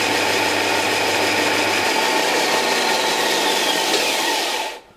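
Wide-belt woodworking sander, used as a metalworking linisher, running with its motor and abrasive belt going at speed; the sound is loud and steady and cuts off abruptly near the end.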